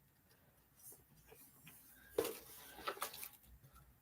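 Faint handling of a cardboard gift box and its contents, with a sharp click about two seconds in and a few smaller clicks after it.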